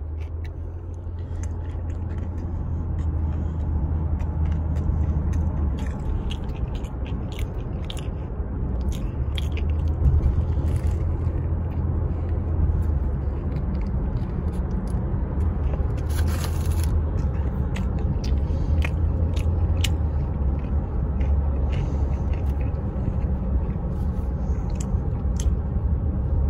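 Close-up chewing of a crispy fried chicken sandwich with onion rings and bacon, with many small crunching clicks, over a steady low rumble in a car's cabin. There is a short rustling burst about sixteen seconds in.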